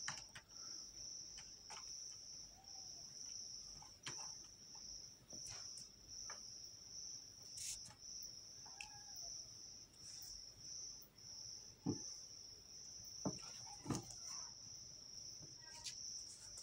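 Crickets chirping in a steady high-pitched trill, broken into pulses about a second apart. A few scattered soft knocks and scuffs come through, the loudest of them about two-thirds of the way in.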